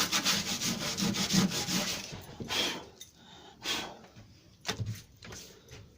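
Sandpaper rubbed by hand over hardened metal body filler on a lawnmower deck: quick, even back-and-forth strokes that stop about two seconds in, followed by a few separate slower strokes.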